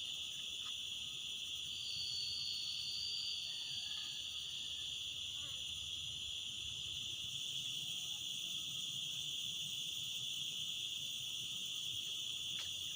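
Steady high-pitched chorus of insects from the swamp forest, an unbroken drone in several high pitches. A thin higher note joins briefly about two seconds in.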